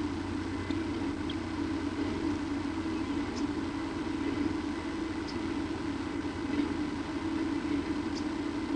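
A steady low hum, with a few faint, very short high chirps scattered through it.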